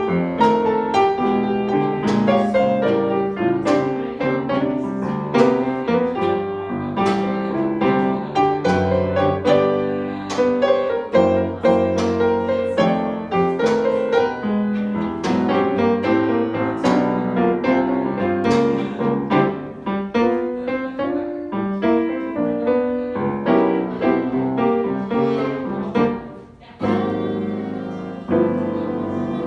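Piano music, notes played in quick succession. It breaks off briefly near the end, then carries on.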